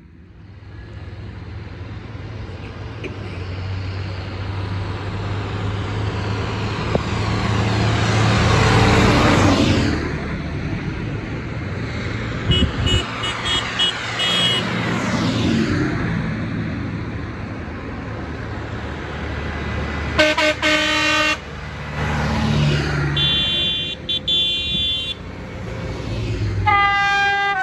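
Farm tractors driving past one after another on a wet road: diesel engines and tyre hiss build up to a close pass-by about nine seconds in, then more tractors follow. Their horns toot several times, with a loud one-second blast about twenty seconds in and another near the end.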